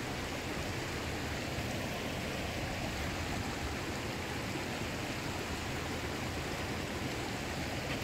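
A mountain stream running, a steady, even rush of water.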